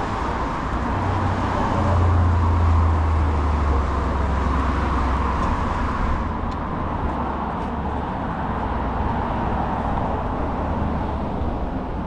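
Street traffic noise, with a motor vehicle's low engine rumble passing close, loudest about two seconds in and fading out by about six seconds.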